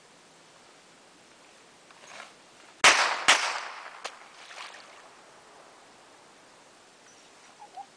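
Two sharp gunshot-like bangs, the second about half a second after the first, each trailing off in an echo.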